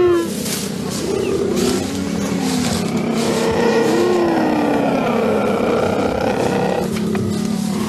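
Cheetahs giving a few low, drawn-out calls that rise and fall, about two and four seconds in, over a steady rustling noise.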